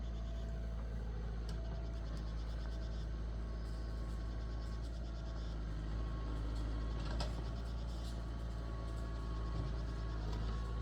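An engine running steadily at an even speed, a low constant hum with a few faint clicks over it.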